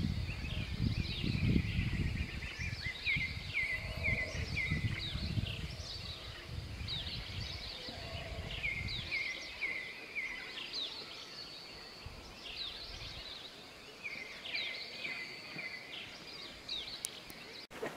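Yucatán black howler monkeys roaring in the distance, a deep pulsing chorus that fades out about halfway through, while birds call with many short repeated chirps throughout.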